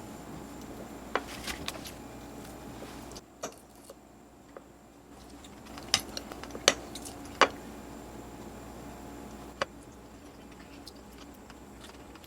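Cutlery clicking and tapping against a dish, about eight sharp separate clicks, the loudest three close together a little past the middle, over a low steady hum.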